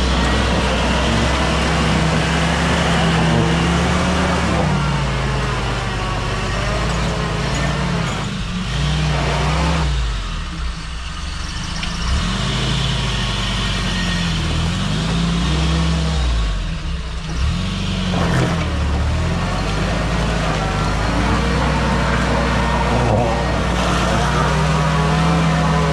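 Mahindra CJ3B jeep's engine running under load on a muddy off-road track, its revs rising and falling again and again, easing off briefly twice.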